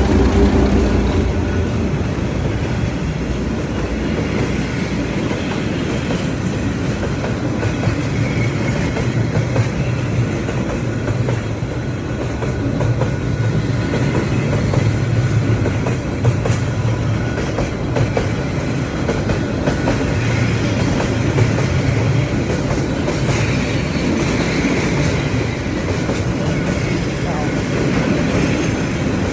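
Freight train rolling past at a level crossing, a steady rumble of wheels on the rails with a low hum and a few sharper clacks.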